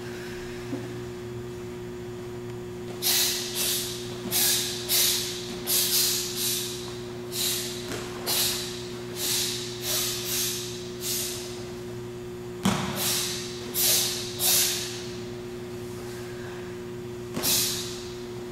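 Karate gi snapping with each fast punch and strike of a Shotokan kata: a series of short sharp swishes, one to two a second, in a long run, then a shorter run and a last single one, over a steady low hum.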